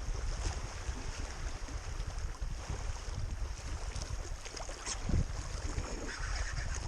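Strong wind buffeting the microphone in uneven gusts, a low rumble over a steady rushing hiss.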